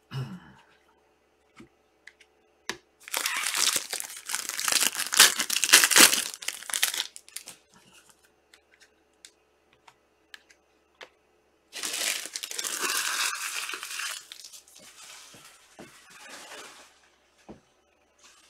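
Trading-card packaging crinkled and torn open in two loud spells, with softer rustling after the second and a few light clicks in between.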